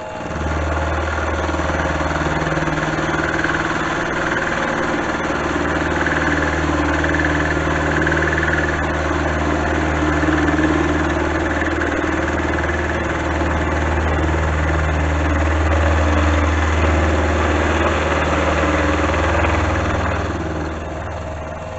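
Milling machine cutting a steel block, taking a 1 mm pass: a steady, loud machining noise over a low motor hum. It comes in just after the start and tapers off near the end as the cut finishes.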